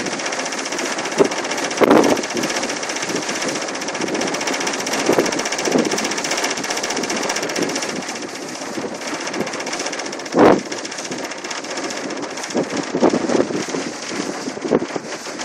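Steady drone of a ferry's engines and machinery heard from the deck, with several gusts of wind buffeting the microphone, the strongest about ten seconds in.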